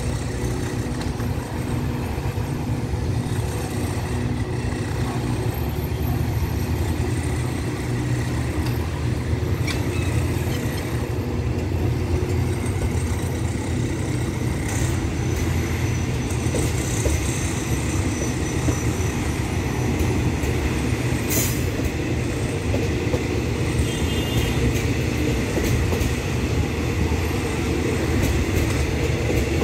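Diesel-hauled passenger train on the track beside the platform, a steady low rumble of engine and coaches that grows slightly louder, with faint clicking from the wheels on the rails.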